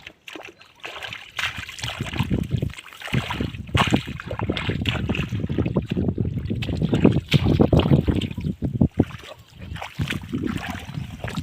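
Hands splashing and sloshing through shallow, muddy water while grabbing fish, in a dense, irregular run of splashes starting about a second in.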